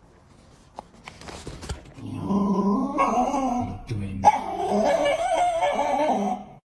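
A dog vocalising in two long, wavering calls, the second starting about four seconds in.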